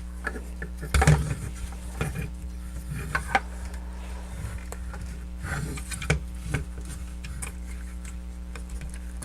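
Clicks, knocks and rubbing of plastic parts as a Jinbao transforming robot figure is handled and its joints are moved and rotated, irregular, with a louder knock about a second in, over a steady electrical hum.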